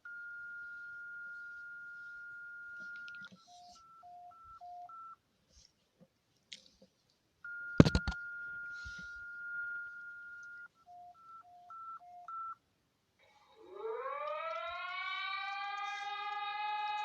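Emergency alert tones: a steady high beep held for about three seconds, then three short two-pitch beeps, the whole pattern played twice, with one sharp loud knock partway through. About thirteen seconds in, a civil defense siren winds up, rising in pitch, and settles into a steady wail.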